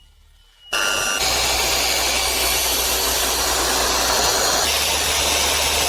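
Electric machine polisher switches on abruptly about a second in and runs steadily, buffing scratches out of an acrylic windshield with a soft pad. Its hum shifts slightly about two-thirds of the way through.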